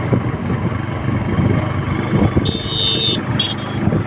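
Wind buffeting the microphone of a moving motorcycle, with the engine running underneath. About two and a half seconds in, a horn sounds twice: a longer honk, then a short one.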